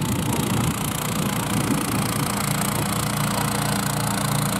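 Small engine of a motorized snow track running steadily as it tows a rider's sled and a second sled across the snow.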